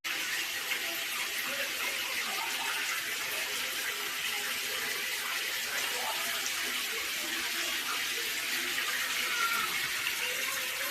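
Water running steadily from the outlet of a Lotus Baths DSK-60 instant tankless electric water heater, a constant hissing splash.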